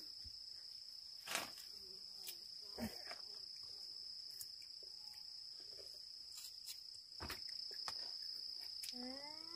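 Steady high-pitched insect chirring, crickets by the look of it, with a few sharp clicks scattered through it.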